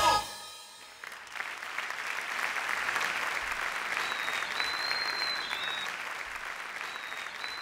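Theatre audience applauding. The applause swells in about a second after the song's last note dies away and stays dense and even.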